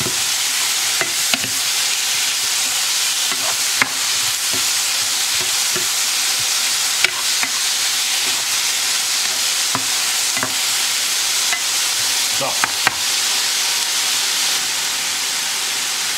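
Chicken breast strips sizzling steadily as they sear in a hot frying pan on high heat, stirred with a spatula that scrapes and knocks sharply against the pan a few times.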